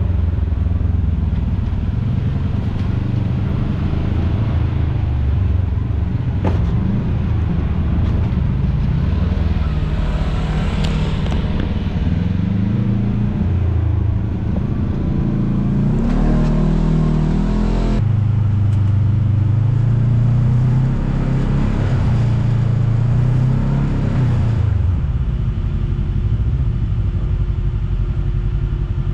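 Side-by-side UTV engine running and revving up and down under load, its pitch rising and falling in uneven surges. The sound changes abruptly about eighteen seconds in.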